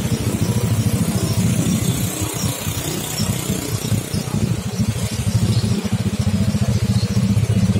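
Engine of a disinfectant-spraying tank truck running steadily with a fast low chugging, driving the spray hose, a little louder from about five seconds in.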